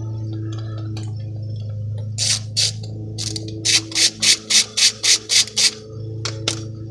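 A ratchet being worked back and forth to undo the coil-pack bolts on a 2002 Dodge Neon 2.0 engine: a run of about a dozen short bursts of ratchet clicking, three or four a second, starting about two seconds in, then two more near the end, over a steady low hum.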